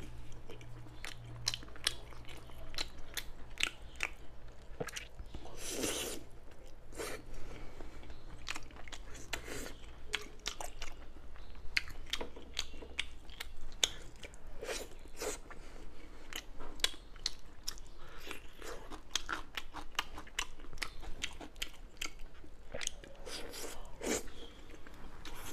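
Close-miked chewing and biting of saucy braised pork belly: wet mouth clicks and smacks, with a few louder bites scattered through.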